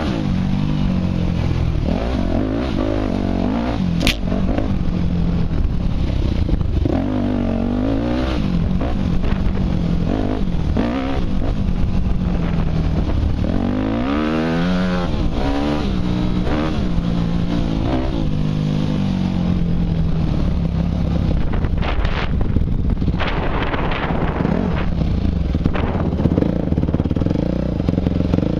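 Yamaha YZ250F dirt bike's single-cylinder four-stroke engine running under constantly changing throttle, its pitch rising and falling over and over. A sharp click about four seconds in.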